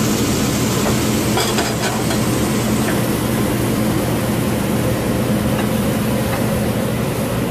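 Bufflehead duck breasts and teriyaki marinade sizzling in a cast-iron skillet, the burner just turned off so they finish on the pan's heat, over a steady low hum. A few light clicks about one and a half to two seconds in.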